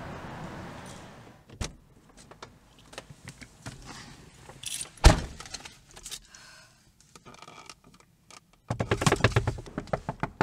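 Handling sounds inside a car: keys jangling and small clicks, then one sharp loud thump about five seconds in. Near the end a denser clatter starts and turns into rapid, evenly spaced tapping.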